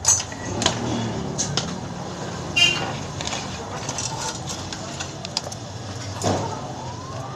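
Scattered metallic clicks and rattles of a bicycle chain being handled and fitted onto a kid's bike, over a steady hum of street traffic.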